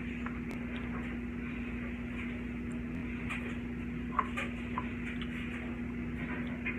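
Steady low background hum with a few faint ticks and small plastic clicks, and one sharper click about four seconds in, as a plastic bottle of white glue is squeezed to empty it into a cup.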